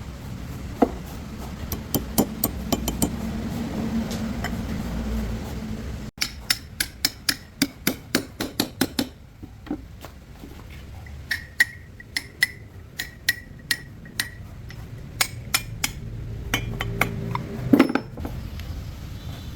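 Hand tools clinking and knocking on metal parts, with a run of quick, even taps, about four a second, around the middle and scattered sharp clinks after.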